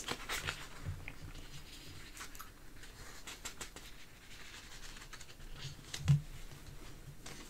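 Loose paper sheets rustling and scraping on a desk as they are handled and turned, in faint scattered bursts, with one brief low sound about six seconds in.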